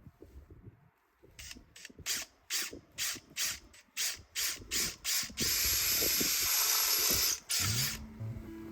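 Short hissing bursts of pressurised spray, about ten quick ones in a row, then one long spray of about two seconds.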